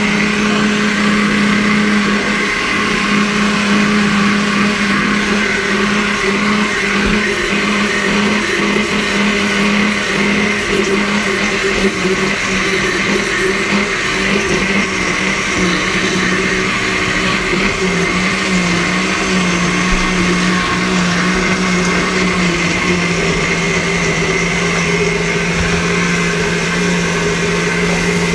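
Countertop blender running steadily, blending a kale and mango smoothie. Its motor note drops a little twice in the second half.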